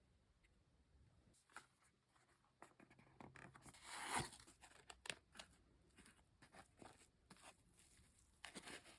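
Typing on a Meletrix Zoom65 V3 custom mechanical keyboard fitted with lubed and filmed KTT Hyacinth linear switches, a POM plate and PBT Cherry-profile keycaps: quick irregular keystroke clacks, with a louder flurry of keys about four seconds in.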